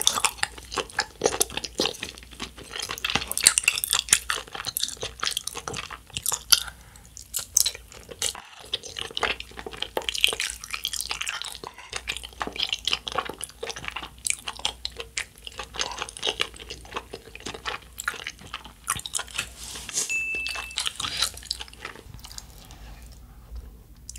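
Close-up chewing of chewy rice cakes in a thick spicy sauce: a steady stream of wet, sticky mouth clicks and smacks, with now and then a light clack of wooden chopsticks in the container.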